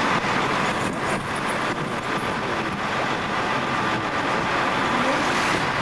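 Vehicles driving across a car ferry's loading ramp: steady engine and traffic noise.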